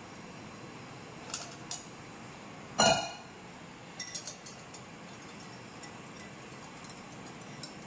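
A wire whisk mixing milk into beaten eggs in a glass bowl: one loud ringing clink on the glass about three seconds in, then light clicks of the whisk against the bowl, over a steady low hiss.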